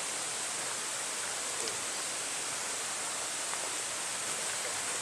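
Steady, even rushing of flowing stream water.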